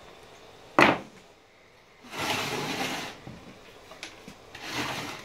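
A sharp clack about a second in, then two stretches of scraping and sliding as the hybrid battery module and its case parts are handled and shifted on a wooden workbench.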